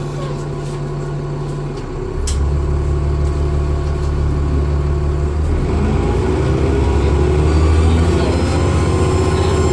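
Dennis Trident II double-decker bus heard from on board, its diesel engine pulling harder about two seconds in as the bus accelerates. From about halfway, rising whining tones come in: the bus's turbo whine.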